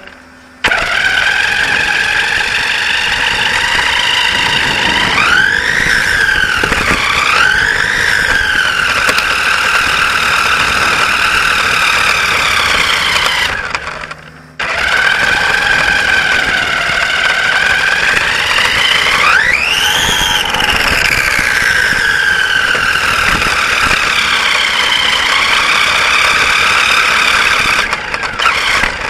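Radio-controlled racing saloon car's motor running close to the on-board camera with a steady high whine. Its pitch rises twice as it speeds up a few seconds in, and rises sharply again about two-thirds of the way through. There is a brief break about halfway.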